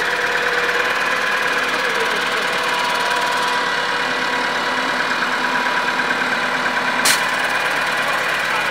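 Tractor engine running steadily while its front loader lifts a pallet into a trailer, with one sharp knock about seven seconds in.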